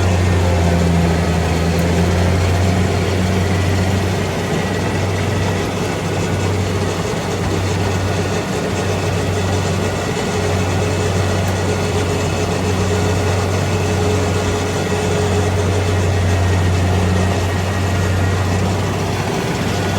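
Rice combine harvester engine running steadily: a loud low hum over mechanical noise, dipping briefly about eight seconds in and again near the end.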